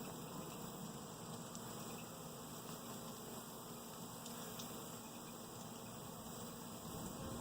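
Honeybees buzzing around an open hive: a faint, steady hum of many bees.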